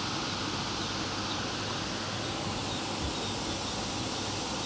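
Steady outdoor ambience: an even hiss with a few faint, short high chirps.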